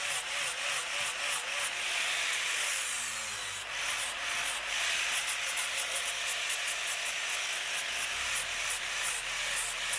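Handheld electric sander working over carved pine wood, a steady abrasive hiss in quick repeated passes that eases briefly about three and a half seconds in.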